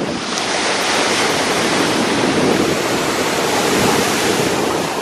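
Small waves breaking and washing up a sandy beach at the water's edge: a steady rushing surf.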